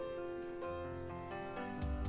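Instrumental background music with held notes that change a few times, and a low bass note coming in near the end.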